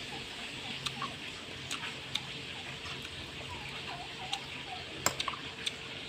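Sharp clicks and taps of a metal spoon and a piece of eggplant knocking against a ceramic bowl, several close together about five seconds in, with soft chewing sounds over a steady low hum.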